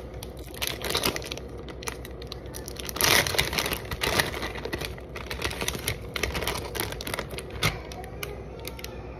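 Plastic sliced-cheese packet crinkling and rustling as it is handled and a slice is pulled out, with a louder stretch of crinkling about three seconds in.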